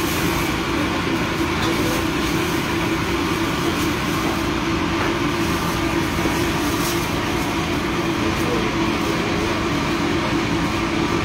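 Steady drone of a ship's running machinery: an even hum with a constant tone that does not change.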